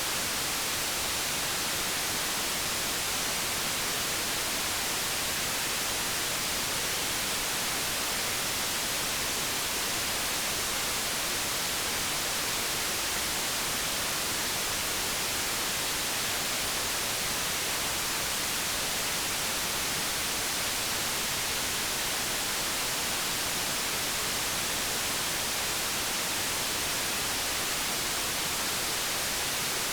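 Steady white noise: an even, unbroken hiss, strongest in the treble, that does not change.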